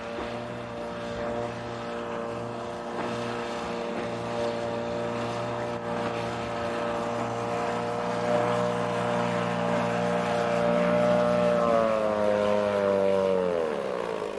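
A steady engine drone that grows slowly louder, then drops in pitch over about two seconds near the end and dies away, like a motor passing by.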